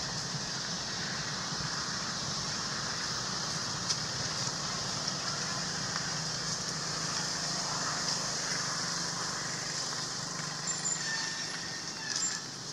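Steady ambient noise: a constant high hiss over a low hum, with a few faint clicks near the end.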